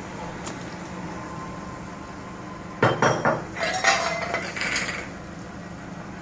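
Metal spoon knocking and scraping against a metal cooking pot as chicken pieces are mixed into the masala. A cluster of clinks and knocks starts about three seconds in and lasts a couple of seconds, with a short metallic ring among them.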